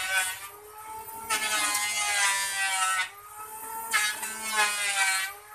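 Wood lathe spinning a turned wooden spindle as the wood is worked against it, giving a wavering, squealing whine in stretches of one to two seconds with short breaks between.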